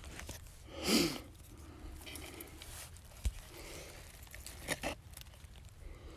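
Hands rustling dry leaves and scraping dirt at a trap set while bait goes into the hole. About a second in there is a short vocal sound falling in pitch, and near the end a couple of sharp clicks.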